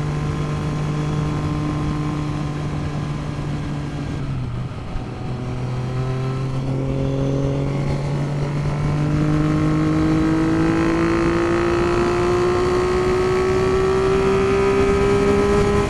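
Triumph 900 three-cylinder engine under way on the road, over wind noise: the engine note holds steady, dips about four seconds in, then rises slowly as the bike pulls up through the revs. Its carburettors run on jetting that the owner says is well out, leaving the carburation poor high in the revs.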